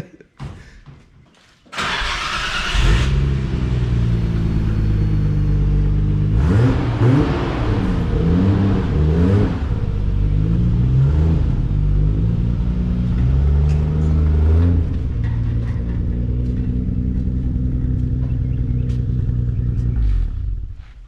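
Nissan Skyline's engine starting about two seconds in, then running and being revved as the car is moved, its pitch rising and falling, before it stops shortly before the end.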